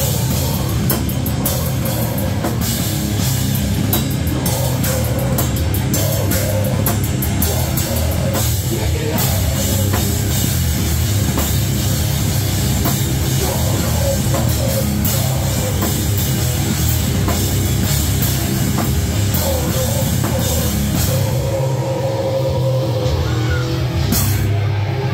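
Live heavy metal band playing: electric guitar over a drum kit with dense cymbal hits. Near the end the cymbals drop away for a few seconds, then a single crash-like hit lands.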